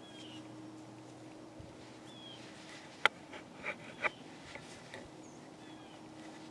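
A few short, down-slurred bird chirps spaced through a quiet outdoor background with a faint steady hum, broken about three seconds in by three sharp clicks in close succession, the first the loudest.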